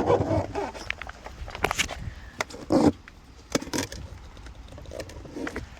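Irregular knocks and clatters of handling, with rustling between them; the loudest come a little under two seconds in, around three seconds in, and near four seconds in.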